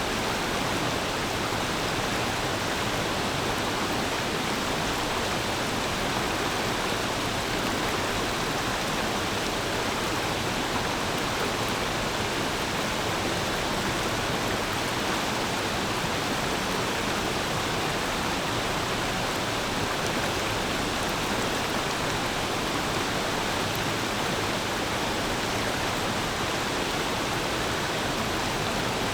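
Clear forest stream flowing, a steady, even rush of water with no change throughout.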